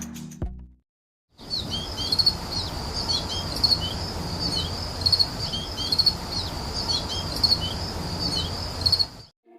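Birds chirping over a steady background rush, short high calls and trills repeating in a regular pattern like a looped nature-ambience track. It starts after a brief silence about a second and a half in and cuts off just before the end.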